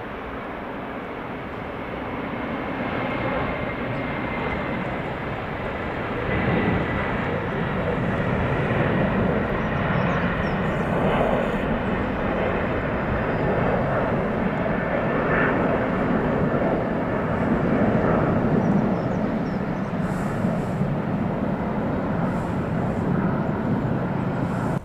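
Four GE CF6-80C2 turbofans of a Boeing 747-400 freighter at takeoff thrust. The sound builds over the first six seconds through the takeoff roll, with a high fan whine early on, then holds loud and steady through liftoff and climb-out.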